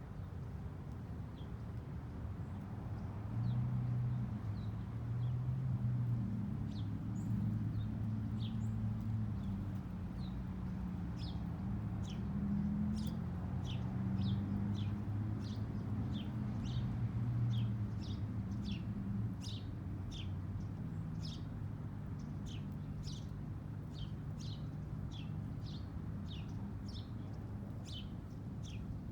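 Small birds chirping: many short, falling chirps, sparse at first and coming about one or two a second from about a quarter of the way in. Under them runs a steady low rumble.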